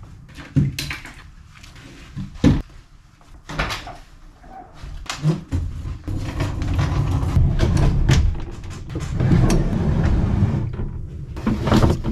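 Kayak fishing gear being handled and loaded: a few separate knocks and clunks, then from about five seconds in a louder rumbling scrape that runs on for several seconds, with more clunks near the end.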